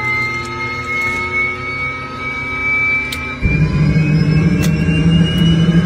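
Can-Am Maverick X3 Turbo RS side-by-side engine running, with a steady hum and a slowly rising whine. A louder, deeper hum comes in about three and a half seconds in.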